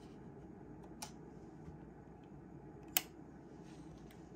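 Front-panel keys of a Hewlett-Packard 70004A test-instrument display being pressed to key in a new signal-generator frequency: a light click about a second in and a sharper, louder click about three seconds in.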